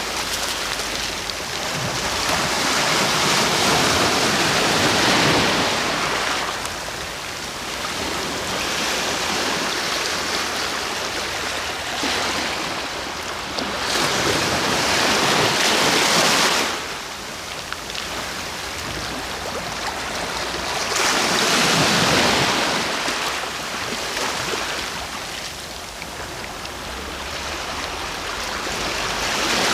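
Ocean waves breaking on the shore in a continuous wash of surf, swelling and falling back in slow surges several seconds apart.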